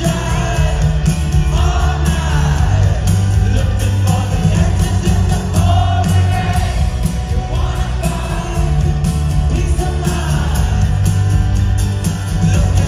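A live rock band plays with a male lead singer, acoustic guitar, keyboards and drums, heard through the PA from within the audience with a heavy bass sound.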